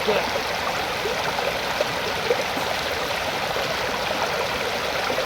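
Steady rush of flowing water, as of a stream running over rocks.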